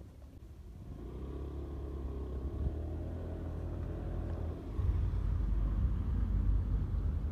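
Motor scooter being ridden: its engine running under a heavy low rumble of road and wind, growing louder about a second in and again near five seconds.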